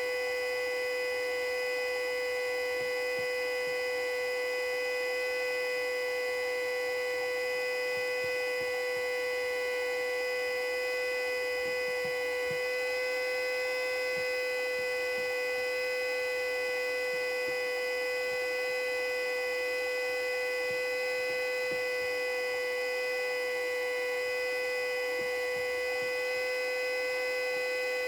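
Custom-built Federal Signal Model 2A siren sounding its steady full-alert signal: one unwavering pitch with a stack of overtones, held at constant strength.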